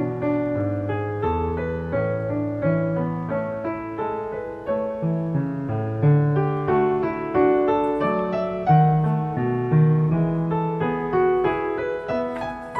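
Background solo piano music, an unbroken melody of struck notes over lower bass notes.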